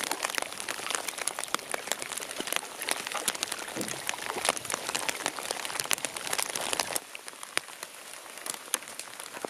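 Rain falling, with many close drops ticking sharply. About seven seconds in it turns quieter, with sparser drops.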